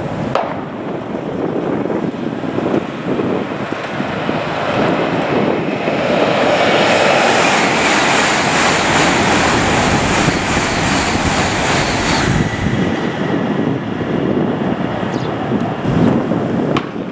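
Wind buffeting the microphone, with a louder broad rushing noise that swells for about six seconds in the middle and then drops away.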